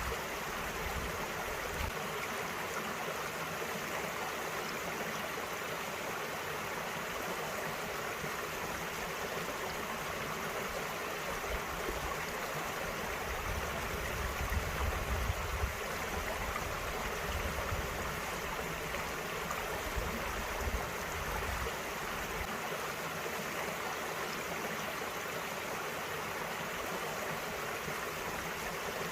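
A small mountain stream running steadily over rocks. Low rumbles of wind on the microphone come and go now and then.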